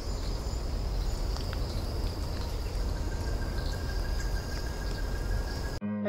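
Unattended trail camera's built-in microphone picking up the woodland: a steady low rumble and hiss with thin high whining tones and a few faint clicks. Just before the end it cuts off abruptly and electric guitar music begins.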